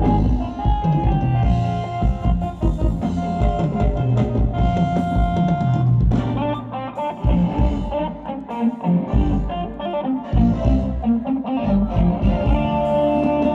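Live ramwong dance-band music: a melody of held notes over a steady drum-kit beat.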